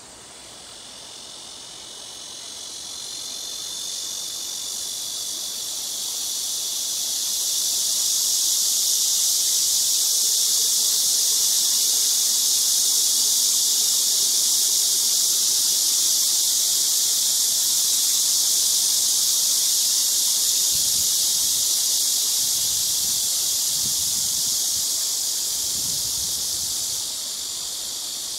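A chorus of cicadas buzzing, high and steady. It swells up over the first several seconds, holds loud, then falls back somewhat near the end.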